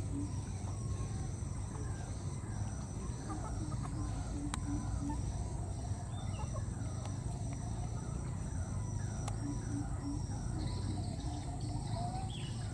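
Outdoor ambience: runs of short, low animal calls at about four a second, near the start, around three seconds in and again around nine seconds in, over a steady high-pitched drone.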